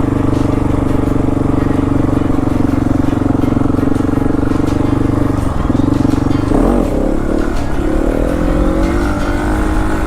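Motorcycle engine running at a steady speed, then about six seconds in its pitch breaks and shifts, as in a gear change, and it climbs again near the end as the bike accelerates.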